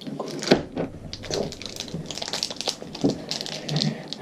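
Blind-bag packaging being torn and crinkled open by hand: a quick, irregular run of crackles and clicks.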